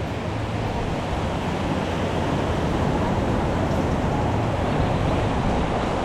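Steady outdoor street ambience: a continuous rumble and hiss with no distinct events.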